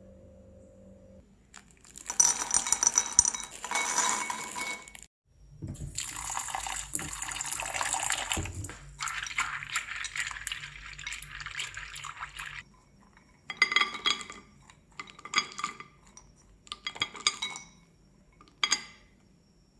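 Almonds being washed by hand in a small bowl of water in a stainless-steel sink: water running and splashing, with the nuts rattling against each other and the bowl. Near the end, several short bursts of rattling and splashing as the wet almonds are shaken out of the bowl.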